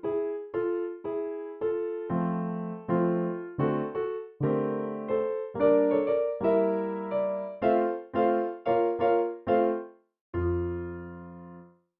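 Background music: an electric piano playing a melody of separate notes, about two a second, ending on a sustained low chord that fades and cuts off near the end.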